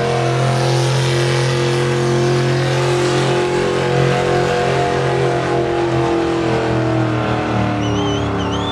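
Super Stock diesel 4x4 pickup at full throttle dragging a weight-transfer pulling sled: a loud, steady engine drone whose pitch slowly sags over the last few seconds as the load builds.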